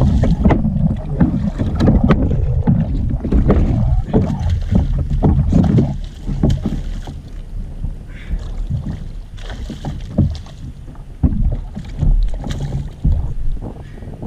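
Wind buffeting the microphone and water slapping around a kayak, with scattered knocks and splashes from a hooked redfish being fought on the rod. It is louder in the first half and eases off in the second.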